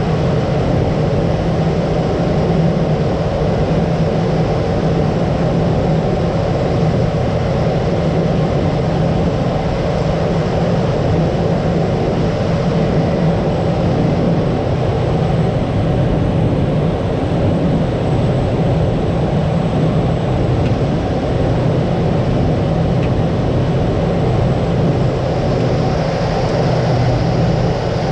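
Cessna 208B Grand Caravan heard from inside the cockpit: the steady drone of its single Pratt & Whitney PT6A turboprop engine and propeller.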